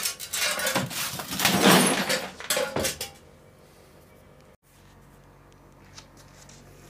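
Rusty bolts and scrap metal parts clattering and clinking in a plastic bucket as a hand rummages through them, stopping about three seconds in.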